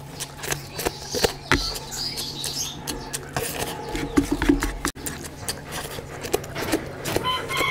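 Wet, open-mouthed chewing and lip-smacking of rice and curry eaten by hand, with squelches of oily rice and curry squeezed and mixed by fingers on the plate, in a run of short, irregular smacks and clicks.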